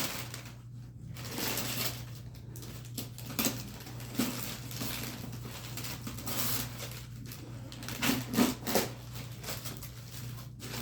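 Paper and packaging rustling and crinkling as a gift box is handled and unwrapped, with scattered crackles and clicks, over a steady low hum.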